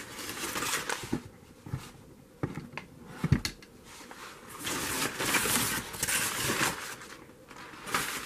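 Paper insulation liners and corrugated cardboard packaging rustling and crinkling as they are handled, with a few sharp clicks and a dull thump about three seconds in.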